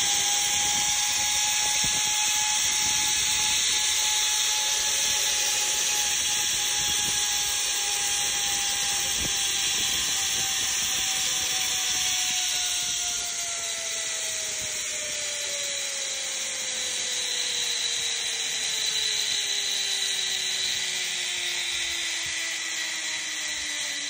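Zipline trolley pulleys rolling along a steel cable: a steady whirring whine over a rushing hiss, its pitch sliding slowly down through the second half as the rider slows toward the landing.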